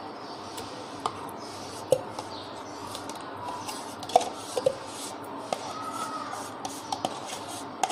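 Metal spoon scraping thick yogurt out of a plastic tub into a glass blender jar, with a handful of short, sharp clicks and taps of the spoon against the tub.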